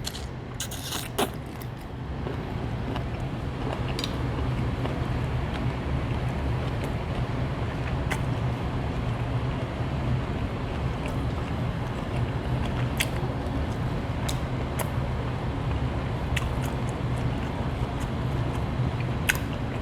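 A steady low background hum, with scattered small clicks and mouth sounds of someone chewing shrimp.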